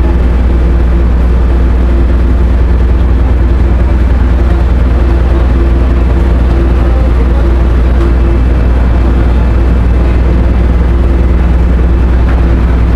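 The ferry's engines running with a loud, steady low drone as the ship readies to depart.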